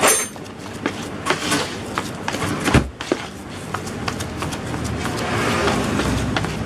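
A plastic scraper and hands scraping and kneading damp, crumbly carp-bait dough in a plastic basin, with scattered scrapes and clicks of the scraper against the basin and one louder thump about three seconds in.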